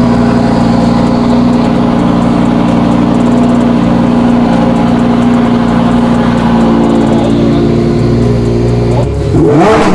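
Lamborghini Huracán Performante's V10 engine idling steadily, with a quick rev that rises and falls back near the end.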